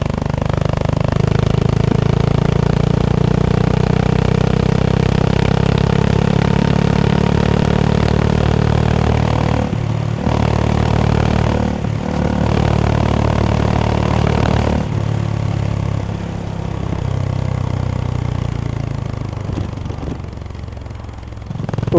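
Honda CB350 H'ness single-cylinder engine running steadily under way, heard from the rider's seat. There are short breaks in the sound about ten and twelve seconds in, and it runs softer over the last several seconds.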